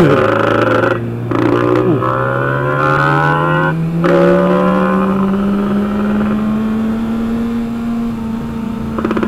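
Motorcycle engines accelerating on the road. One engine note climbs in pitch and breaks off briefly for gear changes about a second in and near four seconds in, while a lower engine tone rises slowly throughout.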